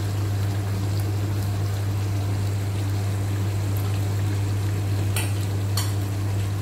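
Stove burning under a pot of thick tomato sauce simmering: a steady low hum with a hiss, and two short clicks about five and six seconds in.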